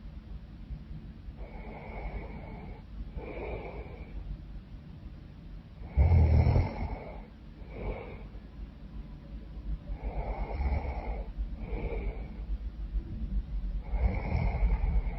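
A woman snoring in her sleep: slow, regular breaths about every four seconds, each drawn in and let out, with one loud snore about six seconds in.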